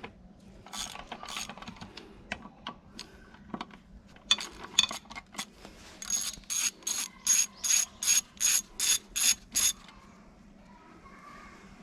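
Scattered clicks and taps of metal tools, then about halfway through a fast, even run of about a dozen ratchet-wrench strokes, three to four a second, that stops a couple of seconds before the end.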